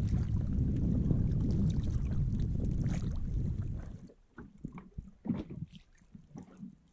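Wind rumbling on the microphone over water around an inflatable boat; about four seconds in the rumble cuts off, leaving quieter small splashes and lapping water.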